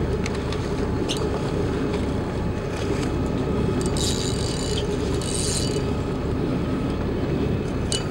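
Steady low rumble of the boat's engine idling, with two short high-pitched whirs from the spinning reel about four and five and a half seconds in as the angler works a big cobia.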